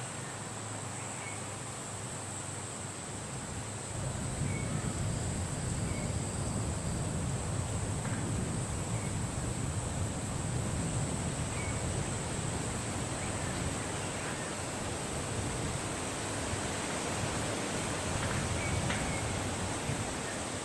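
Wind blowing steadily, its low rumble growing stronger about four seconds in, under a steady high hiss, with a few short, faint bird chirps scattered throughout.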